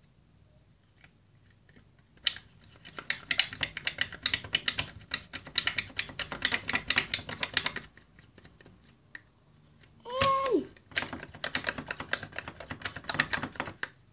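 Metal spoon scraping and tapping rapidly around the inside of a small plastic yogurt cup, in two long runs of quick clicking strokes. Between the runs, about ten seconds in, a short hummed "mm" that drops in pitch.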